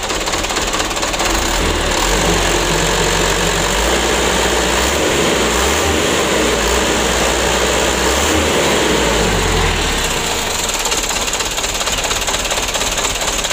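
Mitsubishi Canter 125's four-cylinder diesel engine revved by hand at the throttle linkage, raised and held, then dropping back to idle about ten seconds in. A throttle test on an engine that lacks power and idles unevenly.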